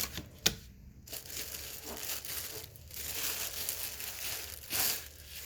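Packaging being crinkled and rustled while a small appliance is unpacked from its box, with a sharp click about half a second in.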